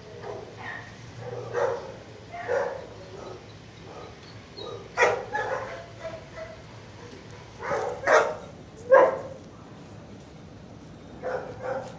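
Dogs barking in a shelter kennel block: about eight short barks in loose groups, the loudest about five, eight and nine seconds in.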